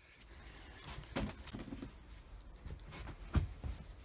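Light handling noises: a few soft knocks and rustles, with one sharper knock about three and a half seconds in.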